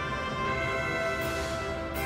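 Instrumental background music with long held notes, orchestral in character.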